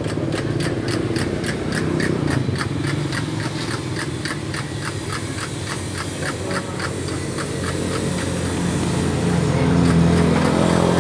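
An engine running, with a steady rhythmic ticking of about three ticks a second over a low hum. A deeper engine note swells and grows louder near the end.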